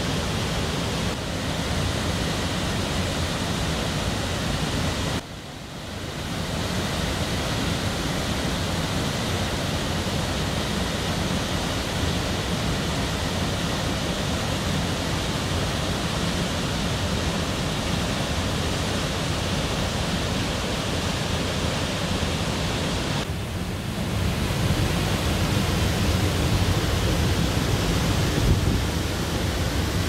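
Sengataki waterfall pouring into its plunge pool: a steady rush of falling water. It dips briefly about five seconds in, and grows a little louder and deeper from about twenty-four seconds on.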